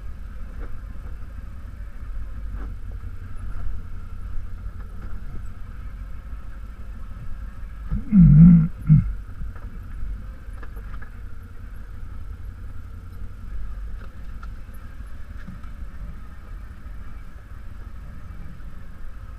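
ATV engine running steadily at low speed over a rough rocky trail, with a few light knocks. About eight seconds in comes a brief loud burst, the loudest sound of the stretch.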